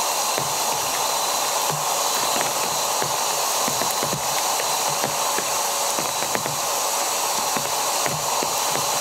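Steady hiss of rain falling, with scattered ticks of drops landing, over the even whir of an electric air pump inflating the beams of an air tent.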